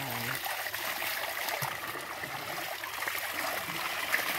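Water pouring steadily from an outlet pipe in a concrete spring wall and splashing onto the wet ground below.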